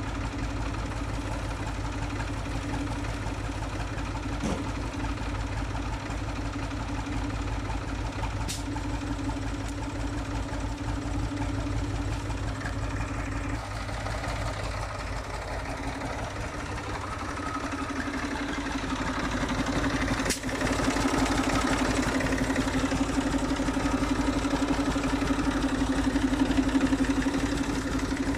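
1985 Fiat Štore 504 tractor's diesel engine running steadily at low speed, growing louder about two-thirds of the way through.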